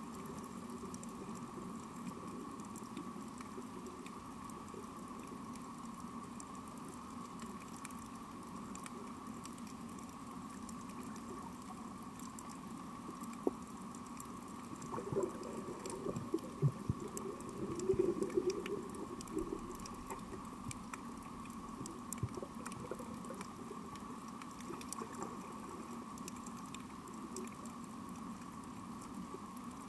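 Underwater coral reef ambience: a constant fine crackle of snapping shrimp clicks over a steady hum. About halfway through come a few louder low knocks and a short burbling stretch.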